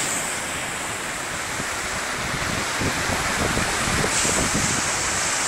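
Storm waves surging and breaking on the shore, with wind blowing on the phone's microphone; the surf grows louder through the second half.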